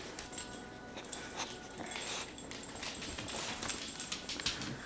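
English Bulldog breathing and snuffling, faint and irregular, close to the microphone.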